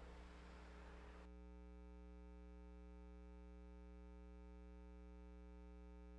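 Near silence: faint background hiss for about the first second, then cuts to nothing but a steady low electrical hum.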